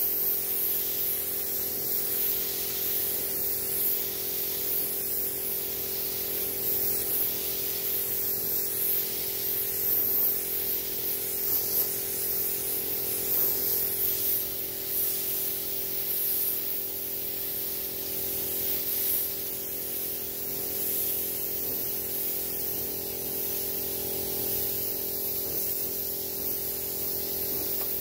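Air spray gun hissing steadily as paint is sprayed onto car body panels. Beneath it runs the steady hum of two small air compressors coupled together to give enough pressure.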